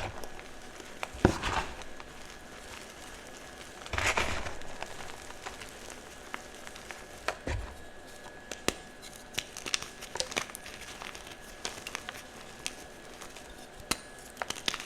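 Soft chalk blocks crunching and crumbling: a sharp crack about a second in, a longer crunch around four seconds, then scattered small crackles and ticks.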